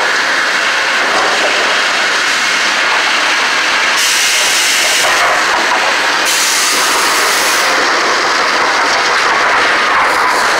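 Steady loud sawmill machinery din: chain conveyors carrying boards rattle and clank under a constant mechanical hiss. A sharper high hiss rises twice midway, each time for a second or so.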